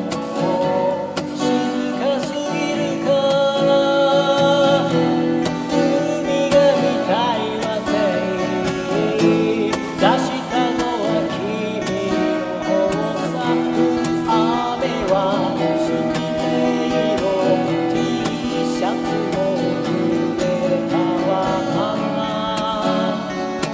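Music: an acoustic-electric guitar strumming chords, with a melody line over it that bends in pitch.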